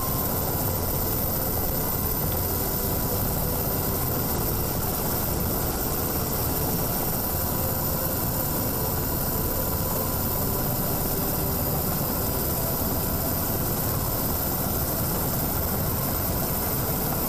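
A steady, even rumble, heaviest in the low end, with no change in level throughout.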